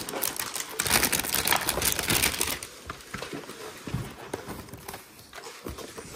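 Cardboard baseball card hanger box and packaging being handled, a busy run of rapid rustling and clicking that dies down after about two and a half seconds to a few scattered taps.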